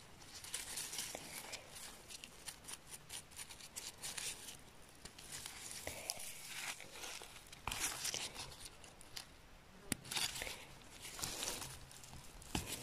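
Gloved hands rustling and crinkling through moss, twigs and forest-floor litter while picking chanterelle mushrooms and trimming their stems with a knife, with a couple of sharp clicks near the end.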